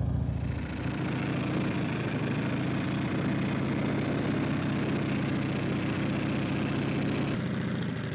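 Harley-Davidson touring motorcycle's V-twin engine running steadily near idle while the bike creeps along at walking pace, the clutch slipped to keep it slow. Its note shifts slightly about a second in and again near the end.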